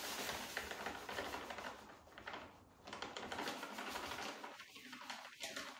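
Dry Marcel Van Den Eynde G5 groundbait, a mix with bigger particles in it, poured from its bag into a small plastic box: a dense patter of tiny grains, with a short pause about two seconds in.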